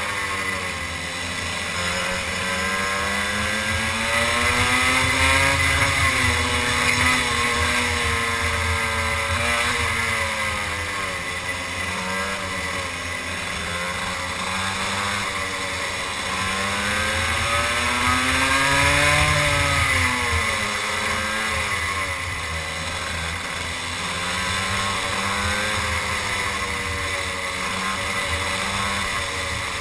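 Two-stroke racing kart engine heard onboard at race speed, its pitch rising as it accelerates on the straights and falling as it slows into corners, several times over.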